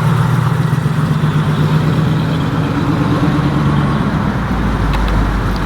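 A car engine idling steadily with a low, even hum that shifts slightly in pitch about four seconds in.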